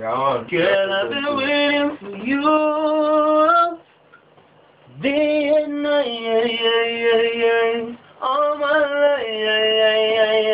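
Unaccompanied singing voice holding long, wavering notes in several phrases, with short silent pauses between them.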